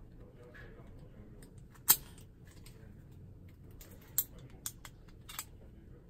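Combination padlock clicking as it is handled and its number dials are turned by thumb: a few sharp, separate clicks, the loudest about two seconds in, then three lighter ones in the last two seconds.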